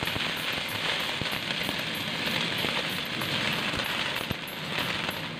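Sliced vegetables sizzling in a stainless steel wok as a metal spatula stirs and tosses them, the hiss swelling with each toss, with scattered clicks and scrapes of the spatula on the wok.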